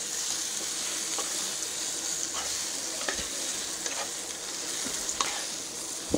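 Masala-coated corn-cob pieces sizzling in a nonstick pan with a steady hiss while a utensil stirs and turns them, with light taps and scrapes on the pan about once a second.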